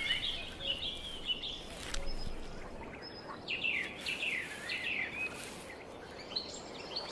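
Birds calling over a faint steady background: a few short chirps in the first second or so, then a run of swooping calls that dip and rise in the middle.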